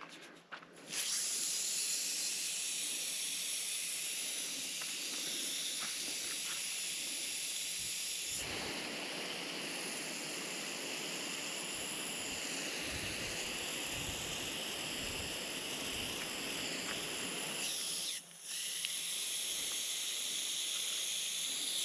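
Water hissing from a hose spray onto a freshly poured concrete slab, wetting it down. The spray starts about a second in, turns fuller partway through, and breaks off briefly near the end before resuming.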